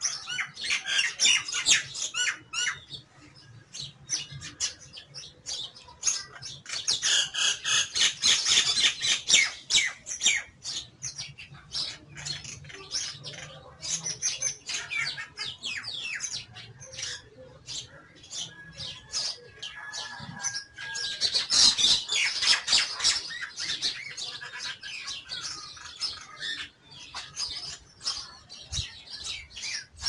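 Common myna calling: bursts of rapid chattering and squawking notes, loudest about a second in, around eight seconds in and again around twenty-two seconds in, with a short steady whistled note a little before the last burst.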